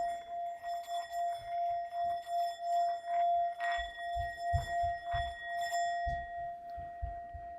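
Singing bowl ringing one steady tone with higher overtones, its level wavering in a slow pulse, with soft low thuds underneath; it fades toward the end.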